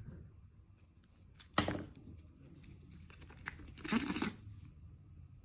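Faint crinkling and handling noises from a plastic toothpaste tube being squeezed, with a sharp crackle about one and a half seconds in and a longer rustle near four seconds.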